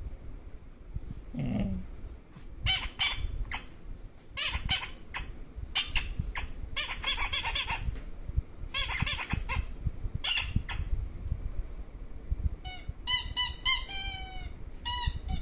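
High-pitched squeaking in five short clusters, then near the end a quick run of short squeaky chirps that each fall in pitch.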